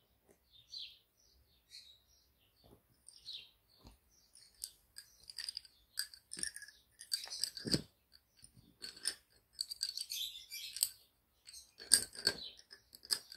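Lace bobbins clicking and clattering against each other in irregular bursts as pairs are twisted and crossed for the lace stitches, sparse at first and busier from about halfway, with a couple of louder knocks.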